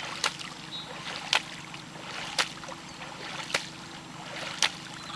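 Small boat on calm water: a low steady hum under a sharp knock that repeats about once a second.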